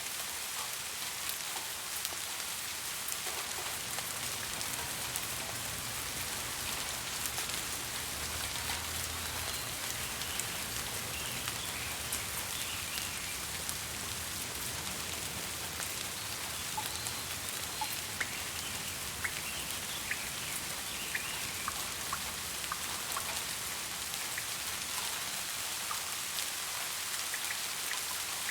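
Steady rain falling on surfaces: an even hiss of rainfall with individual drops ticking and pattering throughout.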